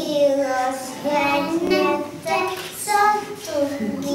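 Young kindergarten children singing a song, in short held notes that move up and down.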